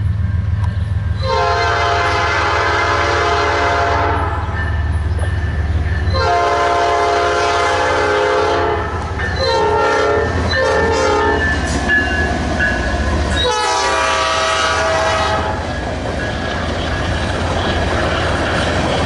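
Diesel locomotive sounding its multi-chime air horn in the grade-crossing pattern: two long blasts, a pair of short ones, then a final long blast. The locomotive's engine rumbles steadily underneath as the train passes.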